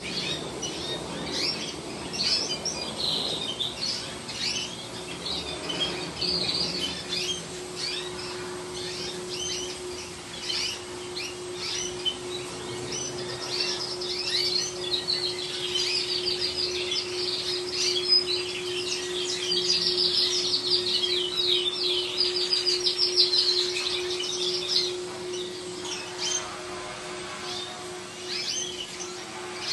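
Several yellow-billed canaries singing at once: overlapping chirps and fast rolling trills, busiest in the middle of the stretch.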